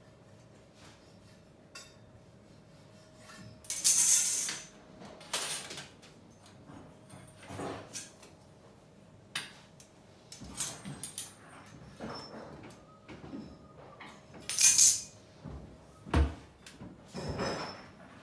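Copper pipe being worked in a hand-lever pipe bender: irregular metal clanks, knocks and short scrapes of pipe and tool, loudest about four seconds in and again around fifteen seconds in, followed by a dull thud.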